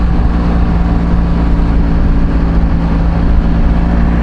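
Motorcycle engine running at a steady cruising speed, holding an even pitch, under a constant low rush of riding noise.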